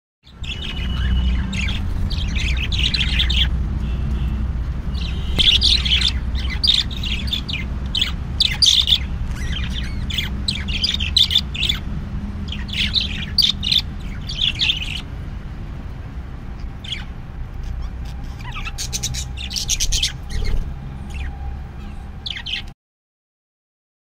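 Caged lovebirds chirping and squawking in quick clusters of short, sharp calls, over a steady low rumble. The calls are busiest in the first half and thin out later. All sound cuts off suddenly near the end.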